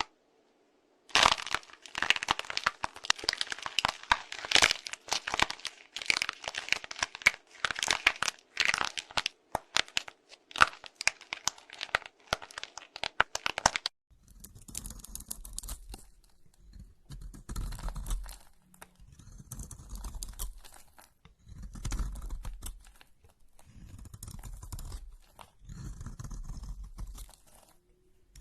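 Dense, crisp crackling and crunching, many sharp cracks close together, for about thirteen seconds. Then, after a sudden change, slower and softer pressing sounds come about every two seconds.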